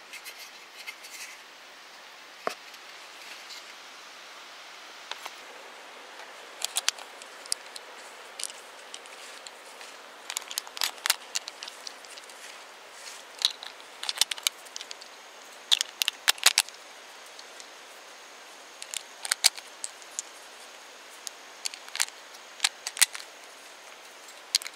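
9mm full metal jacket rounds being pushed one at a time into a Glock 43's single-stack magazine: a string of sharp, irregular clicks.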